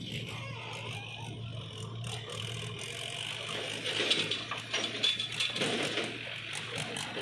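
Diesel engines of a JCB 3DX backhoe loader and a tractor running with a steady low hum. About four seconds in, a louder irregular clatter as the backhoe bucket tips a load of soil into the tractor's trailer.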